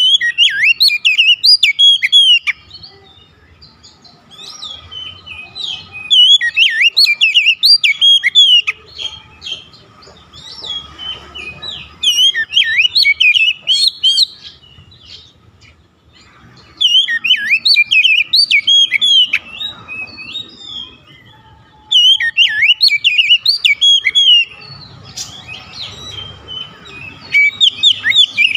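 Oriental magpie-robin singing in loud spells of rapid, varied whistled phrases, each lasting two to three seconds and coming about every five to six seconds, with quieter gaps between.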